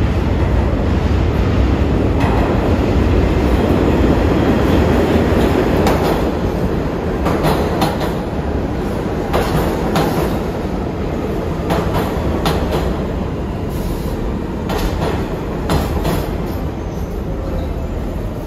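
New York City Subway A train entering an underground station: a steady low rumble, loudest in the first few seconds as it comes in, then easing while scattered sharp wheel clicks sound as the cars run along the platform.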